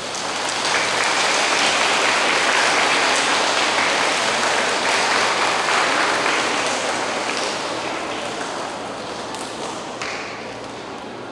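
Audience applauding, building within the first second, then slowly fading away over about ten seconds.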